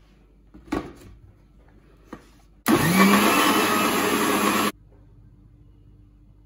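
Prestige mixer grinder's motor spinning up with a rising whine and running loud for about two seconds as it grinds cooked tomatoes into puree, then cutting off suddenly. A single knock comes earlier, about a second in.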